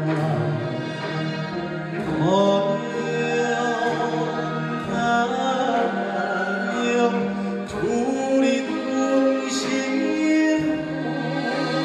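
Male Korean folk singer (sorikkun) singing with a Korean traditional orchestra accompanying, holding long notes and sliding up into them.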